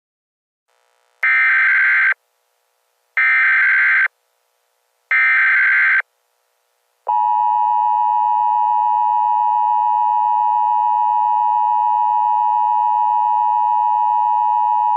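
Emergency Alert System tones. First come three identical one-second bursts of SAME header data screech. About seven seconds in, the steady two-tone EAS attention signal starts and holds unbroken for about eight seconds.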